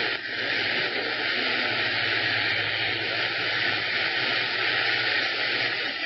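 CB radio receiver on 27.025 MHz giving a steady hiss of static through its speaker, with a low steady hum under it.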